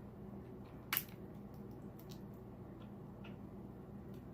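King crab leg shell being handled and worked open: a sharp click about a second in, then a few faint clicks, over a low steady hum.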